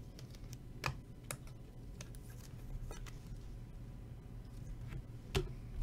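Faint handling of a trading card and a rigid plastic top loader: a few light clicks and taps, the sharpest near the end, over a low steady room hum.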